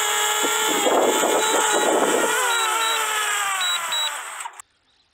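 DJI Mavic Mini's propellers whining as it hovers low to land, with a gusty rush of air a second or so in. The whine drops in pitch over the last second and a half, then cuts off suddenly: the drone has touched down and its motors have stopped.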